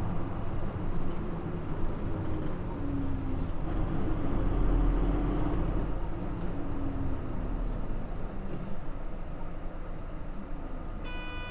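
Nissan Diesel JP city bus's diesel engine heard inside the passenger cabin, pulling hard with its pitch rising and falling, loudest about halfway through and easing off after about eight seconds. A short high chime-like tone sounds near the end.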